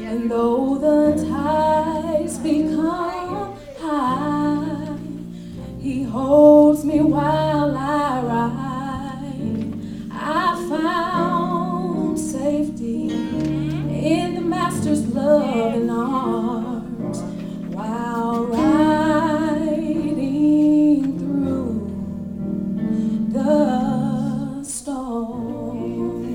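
A woman singing a gospel song over guitar accompaniment, her voice wavering through long ornamented runs.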